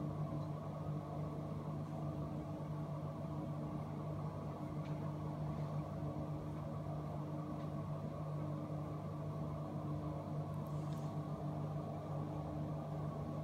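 A steady machine hum with a few faint clicks.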